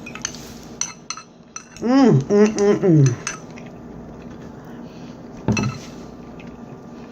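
Cutlery clinking and knocking against a plate during a meal: a few sharp clicks in the first second or so, a brief voice about two seconds in, and one louder knock past the midpoint.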